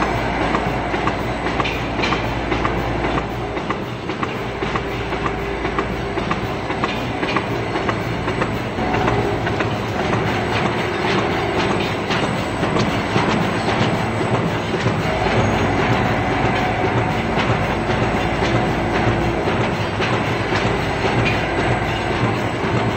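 Roll-fed paper die punching machine running, punching paper cone blanks from a paper roll with a steady, rhythmic mechanical clatter.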